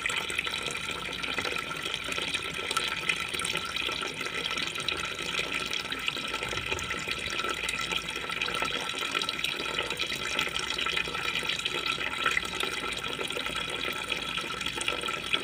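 Steady flow of liquid running from a plastic hose into a bucket of solution, splashing and bubbling at the surface.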